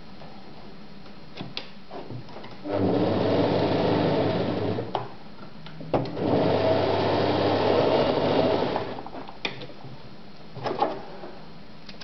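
Neckermann electric sewing machine stitching through fabric in two runs, about two seconds and then about three seconds long. Short clicks from handling the machine come between and after the runs.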